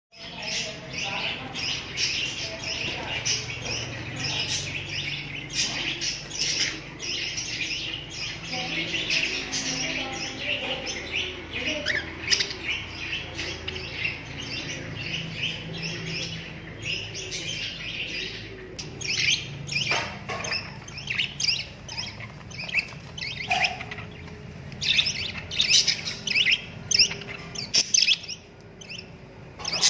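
Cockatiels and other small parrots chirping and twittering continuously, many birds calling over one another. The chirps grow louder and more separate in the last few seconds.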